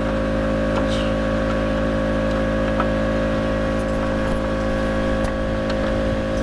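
A steady mechanical drone from a running engine or motor, holding one pitch throughout, with a few faint light ticks on top.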